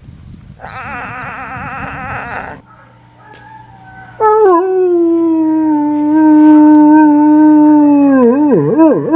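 A dog howling: one long, loud, steady note starting about four seconds in, which breaks into wavering, wobbling yelps near the end. Before it comes a shorter trembling animal call.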